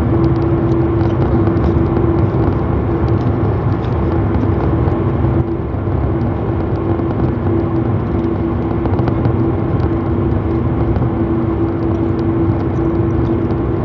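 Steady car cabin noise: the engine's hum and a low rumble, heard from inside the car.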